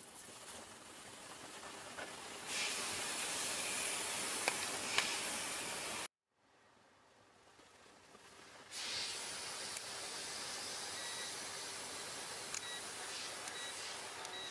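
Steady hiss of outdoor background noise that swells over the first few seconds, cuts out about six seconds in and comes back, with a few faint clicks.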